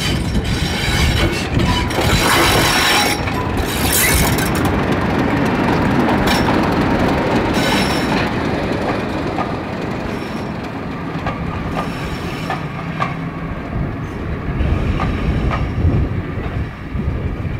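Class 31 diesel locomotive's English Electric V12 engine running as it passes close by, followed by its coaches rolling past with wheels clicking over rail joints from about halfway through.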